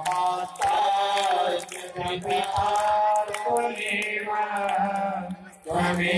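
A group of children chanting Vedic mantras together in a sing-song melody, with long held notes and a short pause near the end.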